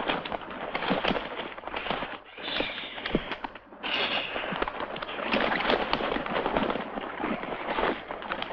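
A mass of vultures squabbling over a carcass: hissing and harsh calls over a dense crackle of clicks and knocks from jostling bodies, beaks and wings, with brief lulls twice.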